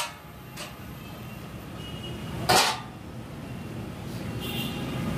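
Stainless steel tofu-press mould parts clanking as they are handled: one sharp metal clank about two and a half seconds in, with a lighter knock earlier.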